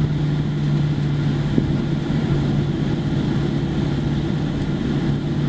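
Boeing 737-700's CFM56-7B turbofan engines at taxi power, heard inside the cabin: a steady drone with a constant low hum and a rumble underneath as the jet rolls over the concrete.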